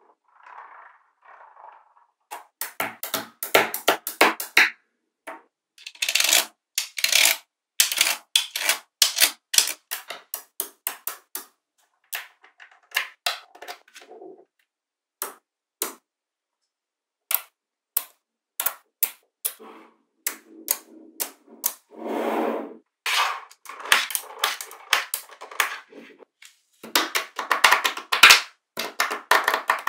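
Small magnetic balls clicking sharply as they snap onto one another, in irregular runs of quick clicks with short pauses between, and a brief rattle of balls rolling together about two-thirds of the way in.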